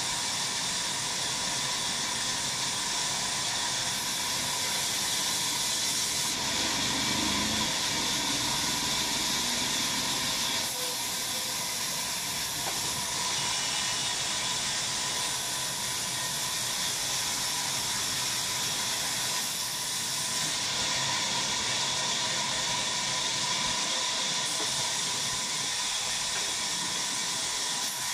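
Sawmill running and cutting wood: a steady hissing noise with a constant whine, changing abruptly several times.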